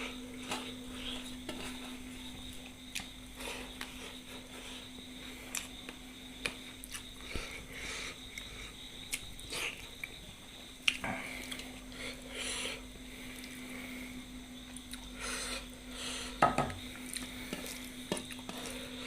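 Scattered clinks and scrapes of a plate and utensils during a meal, with small eating noises between them, over a steady low hum.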